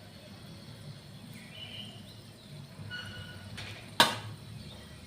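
Low steady background hum with a few faint bird chirps, and one sharp knock about four seconds in, the loudest sound.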